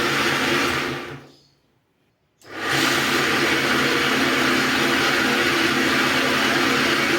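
Old bench grinder motor running steadily, driving a pair of drill spindles through a round rubber belt. The sound fades out about a second in and cuts back in about a second later at the same pitch.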